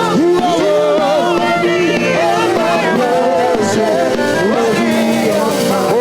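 Live gospel praise music at a steady level: held chords under a melody that slides up and down between notes.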